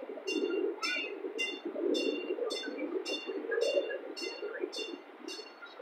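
Miniature ride-on train running along its track: a steady low rumble with an evenly repeating, ringing metallic clink about twice a second.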